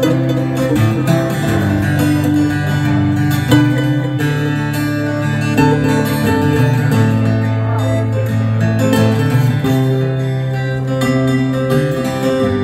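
Two acoustic guitars playing an instrumental intro together, chords ringing and changing every second or two.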